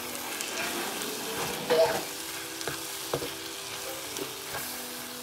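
Chopped tomato and onion sizzling in an oiled frying pan while being stirred, with a few short clicks of the stirring utensil against the pan.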